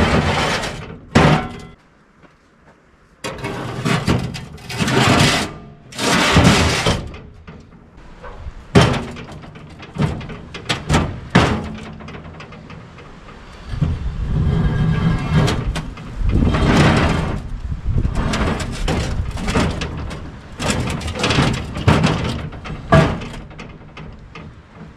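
Heavy thuds, knocks and scraping of lengths of old steel rail being handled and loaded, a run of separate impacts with several sharp knocks about halfway through.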